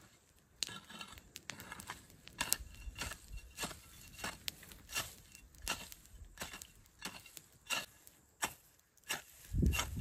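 Metal-bladed hoe chopping into weeds and soil, a sharp stroke roughly every half second to a second, with a deeper thump near the end.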